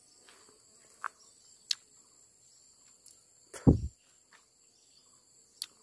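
Steady high-pitched drone of forest insects, with scattered sharp clicks of twigs and leaves and one short low thump a little past halfway.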